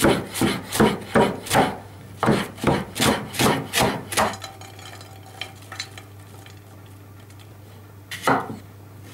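Chef's knife chopping ramson (wild garlic) stems on a wooden cutting board: quick, even knocks of the blade on the wood, about four a second, for roughly four seconds. After a pause, a single knife cut through a cucumber onto the board comes near the end.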